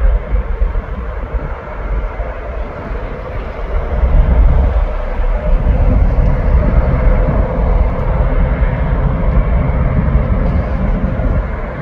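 Jet airliner's engines at takeoff power, a steady low rumble that grows louder about four seconds in as the aircraft accelerates, lifts off and climbs away.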